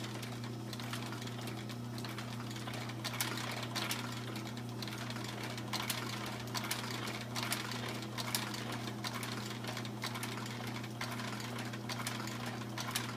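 American Straight Needle industrial sewing machine stitching a leather boot top: a steady motor hum with irregular clicks and knocks from the needle mechanism.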